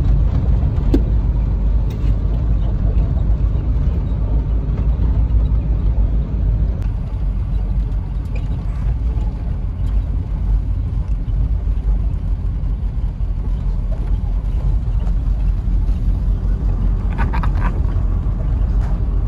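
Jeep driving: a steady, loud low rumble of engine and road noise.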